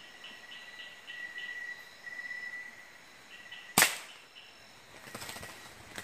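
A single sharp gunshot about four seconds in, fired at a bird roosting in the foliage at night, over steady high-pitched insect chirring.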